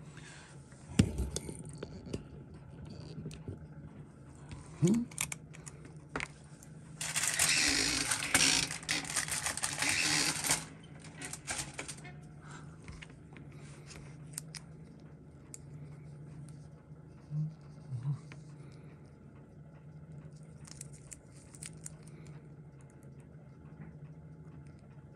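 Hands working at a watch bench: a sharp click, then several seconds of scraping and rustling as the case is handled and its screw-down caseback comes off, with scattered small clicks afterwards, over a steady low hum.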